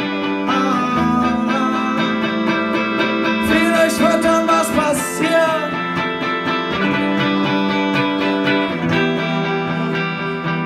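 Semi-hollow-body electric guitar played solo through an amplifier, held chords and picked notes in a short instrumental passage of a song.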